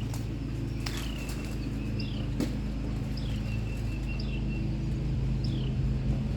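A bird chirping over and over, about once a second, each chirp falling in pitch and some trailing into a short held note, over a steady low drone.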